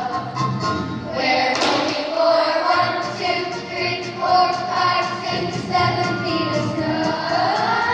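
Children's chorus of fifth and sixth graders singing together, with instrumental accompaniment underneath.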